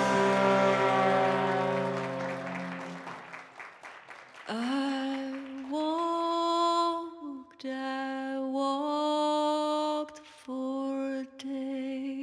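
Band music fades out over the first few seconds; then a woman sings alone in slow, long-held notes, sliding up into the first ones, with short breaks between phrases and a slight waver near the end.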